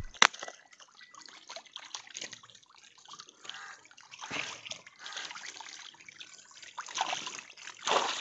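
Shallow water trickling and dripping over a drained pond's tarpaulin liner, with a few light splashes and ticks.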